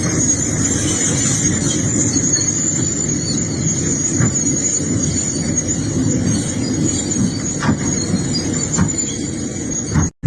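Excavator working, its engine rumbling under a steady high-pitched metallic squeal, with a few faint clicks; the sound cuts out briefly near the end.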